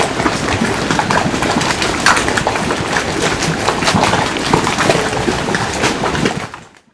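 Loud splashing of falling water, dense and irregular, fading out near the end.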